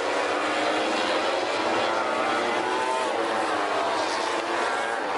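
Several MotoGP race motorcycles passing at high revs, their high engine notes overlapping and shifting slightly in pitch.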